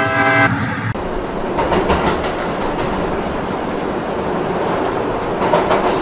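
Train horn blowing and cutting off about a second in, then a train running over the rails with a steady rumble and wheel clatter.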